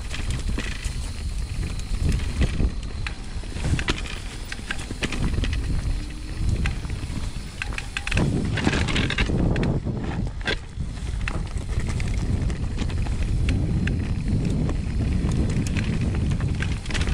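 Orbea Rise e-mountain bike riding over a rough trail: a steady low rumble of tyres on dirt and stones, peppered with rattles and knocks from the bike, with wind buffeting the microphone. About eight to ten seconds in the noise grows rougher and hissier for a couple of seconds.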